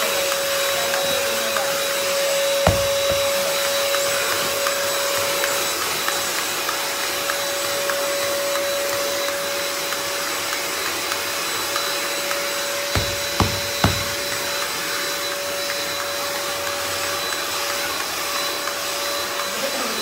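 Euro Fine EF6239 1000-watt handheld vacuum cleaner running steadily with a constant whine, its upholstery brush drawing dust out of a sofa cushion's sponge. A sharp knock sounds about three seconds in and three more come close together around thirteen to fourteen seconds in.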